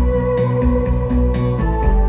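Live electronic synthesizer music: sustained synth chords over a pulsing bass line, with a sharp percussion hit about once a second. The chord changes about one and a half seconds in.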